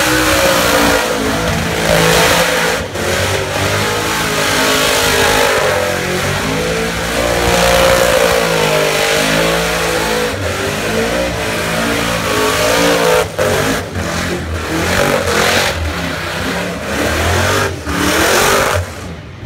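Supercharged 408 cubic-inch LS V8 in a VF Commodore ute held at high revs through a tyre-smoking burnout, its note wavering up and down as the throttle is worked. The revs dip briefly a few times and drop sharply just before the end.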